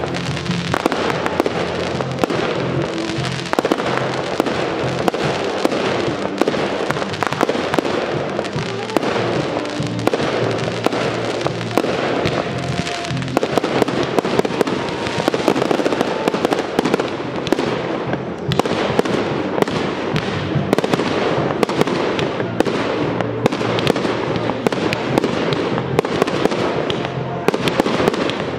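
Fireworks display: a dense, continuous run of bangs and crackles from rising comets and bursting aerial shells, with music playing underneath.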